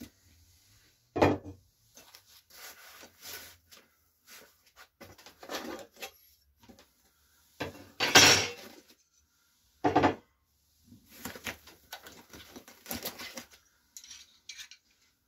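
Metal frame rails and parts of a SainSmart Jinsoku LC-60A laser engraver being handled in their foam packing: scattered clunks, clinks and rubbing. There is a sharp knock about a second in and the loudest clatter about halfway through.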